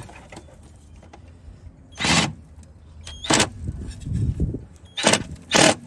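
Cordless mini impact driver run in four short bursts on a stubborn bumper fastener, with tool and plastic handling noise between the bursts.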